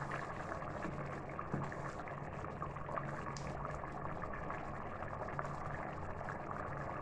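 Biryani rice and masala water bubbling at a rolling boil in an aluminium pot, with a few light knocks of a wooden spatula as it is stirred. A steady low hum runs underneath.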